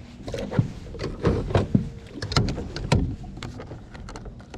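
Irregular knocks, thumps and clicks of gear being handled aboard a small boat: rod, reel and feet on the deck.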